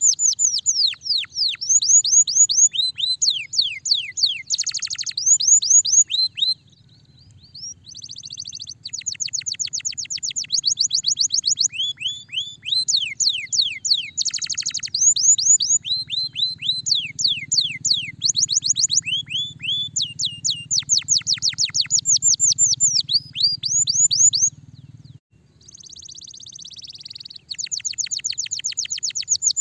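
Domestic canary singing a long song of rapid trills, made of quick repeated downward-sweeping notes and rolling phrases. It breaks off briefly twice, about 7 seconds in and again about 25 seconds in, over a faint low hum that stops near the second break.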